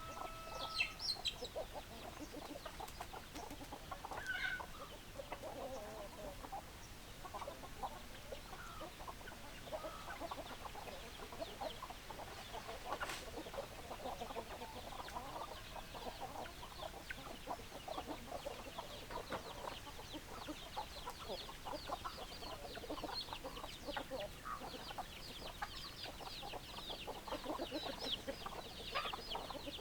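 A flock of chickens clucking, many short calls overlapping irregularly, with a denser run of high-pitched calls in the last third.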